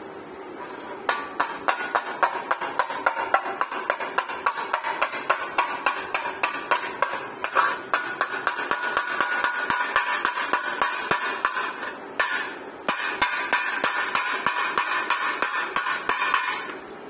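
Chipping hammer striking along a fresh stick-weld bead on thin sheet steel to knock off the slag: rapid metallic strikes, about four a second, with a short pause about twelve seconds in, stopping just before the end.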